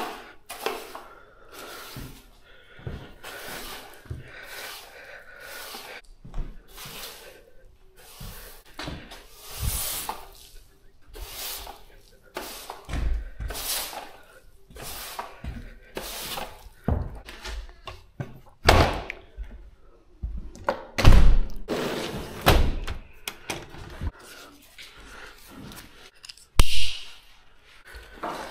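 Irregular knocks, thunks and clatter of things being handled and set down in a small room, with a few heavier thumps in the second half, the loudest about two-thirds of the way through.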